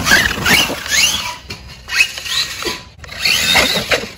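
Losi LMT Grave Digger RC monster truck's brushless electric motor whining up in short throttle bursts: several quick rising whines in the first second, then more in the second half.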